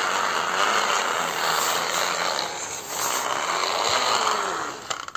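Small battery-powered toy car running with a loud, steady noisy whirr that cuts off suddenly about five seconds in, with a few clicks.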